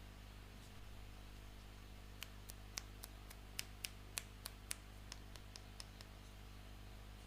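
A quick run of small, sharp clicks, about four a second, starting about two seconds in and stopping about six seconds in, over a faint steady low hum.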